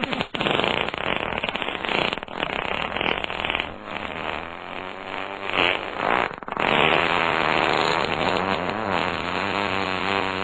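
Fart sound effects following one another, with wobbling, rasping pitch. After a brief gap about six seconds in comes one long, drawn-out one.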